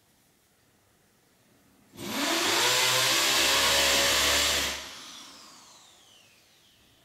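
Electric drill drilling into a wall in one loud burst of about three seconds: the motor spins up sharply, runs at full speed, then winds down with a falling whine.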